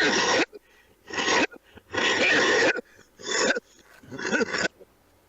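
A man coughing in a fit: five hacking coughs in quick succession over about four and a half seconds, the later ones with voice in them, then it stops.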